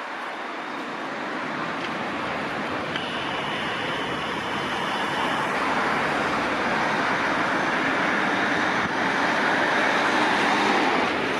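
A tram approaching on its rails, its running noise growing steadily louder over several seconds, with a thin high tone for a couple of seconds about three seconds in.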